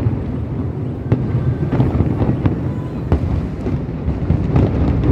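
Aerial fireworks display: overlapping low booms of shell bursts, with scattered sharp bangs and crackles, irregular and continuous.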